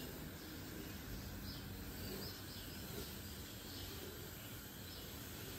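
Faint outdoor background noise, a low steady rumble, with a few short faint bird chirps scattered through it.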